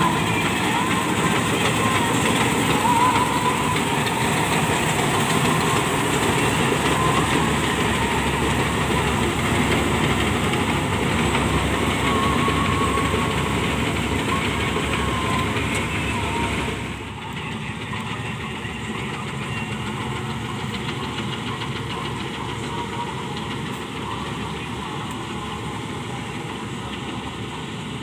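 Malkit 997 combine harvester running under load as it cuts standing wheat: a steady, dense mechanical din of engine and harvesting machinery. It drops suddenly in loudness about two-thirds of the way through and continues steadily, heard from farther off.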